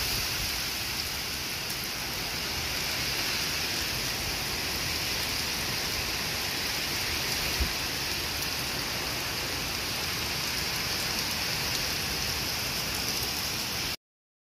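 Heavy rain pouring steadily in a severe thunderstorm, with one brief knock about halfway through; the sound cuts off suddenly just before the end.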